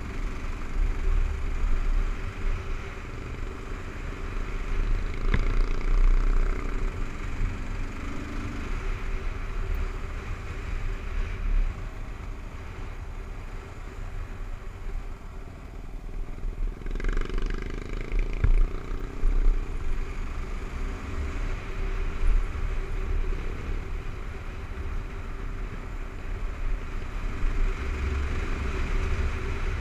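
Kawasaki KLR 650's single-cylinder four-stroke engine running steadily at riding speed on a dirt road, heard from the rider's seat over a heavy, gusty rumble of wind on the microphone. A couple of sharp knocks, about five seconds in and again near eighteen seconds.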